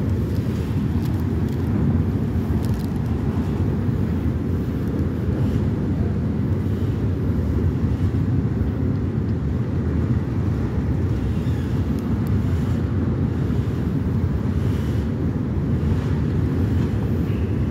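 Car ferry's engines running at the dock: a steady low rumble that holds an even level throughout.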